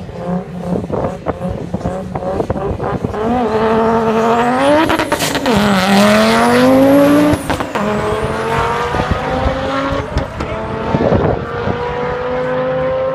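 Drag-racing car engine held at high revs on the start line, the revs bouncing up and down rapidly, then launching hard. The pitch climbs through the gears with two upshifts, about five and seven and a half seconds in, and keeps pulling as the car runs away down the strip.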